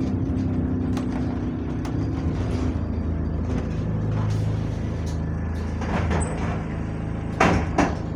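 Bus engine and drivetrain running steadily on the move, heard from inside the passenger saloon, with two loud knocks about half a second apart near the end.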